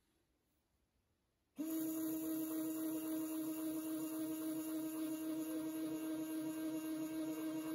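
RCBS electronic powder dispenser's motor running, turning its tube to trickle rifle powder into the scale pan. It starts suddenly about a second and a half in and then hums steadily at one even pitch.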